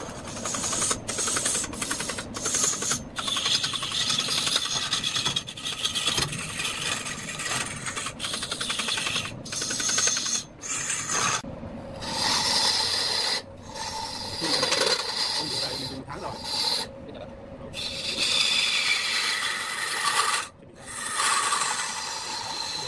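Hand-held turning tool cutting into a large wooden cylinder spinning on a lathe: a continuous rasping scrape as shavings come off. The scrape breaks off for a moment several times, mostly in the second half.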